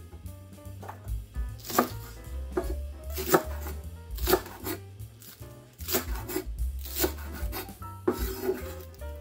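Chef's knife chopping green onions on a wooden cutting board. The blade knocks sharply on the board at an uneven pace, roughly once a second.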